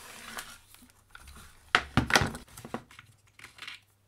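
Knocks and clicks of a rotary hammer's housing being handled and worked apart by hand, with two sharper knocks a little under two seconds in and a brief scrape near the end.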